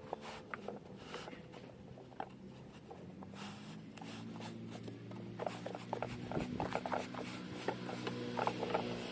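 Plastic toy train wagon being cleaned by hand: light clicks, taps and rubbing. A faint steady low hum comes in about three seconds in.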